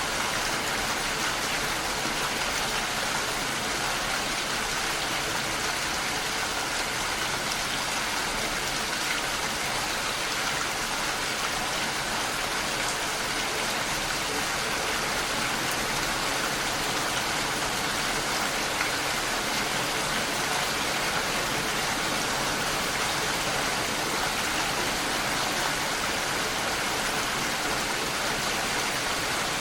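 Steady, even rain falling on surfaces.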